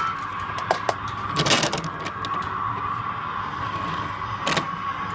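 A few sharp clicks and a short rustle as a kiddie ride's plastic steering wheel is handled. A steady hum runs underneath throughout.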